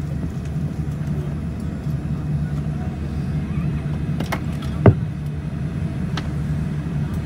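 Steady low cabin hum of a Boeing 787-9 taxiing slowly with its Rolls-Royce Trent 1000 engines at idle. A sharp click sounds about five seconds in.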